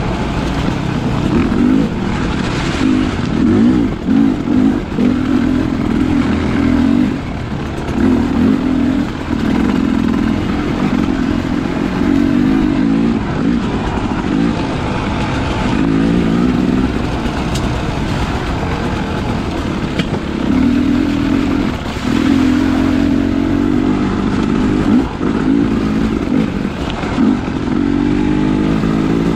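Enduro dirt bike engine running under way, its pitch repeatedly rising and falling as the throttle is opened and closed over the trail, over a steady low rumble.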